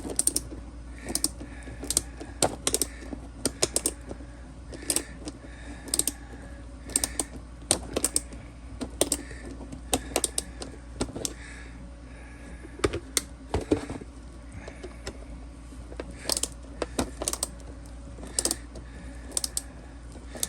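Screw being turned by hand with a screwdriver into 3D-printed plastic parts: irregular sharp clicks, many followed by short squeaks as the screw cuts into the plastic.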